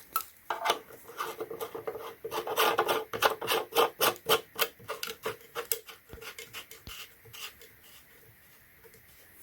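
A rapid run of clicks, about three to four a second, as the plastic housing of a submersible pond pump is handled. The clicks thin out and stop near the end.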